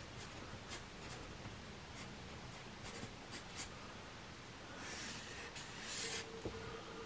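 A pen drawing on paper, faint: a few light taps and scratches, with two longer strokes about five and six seconds in.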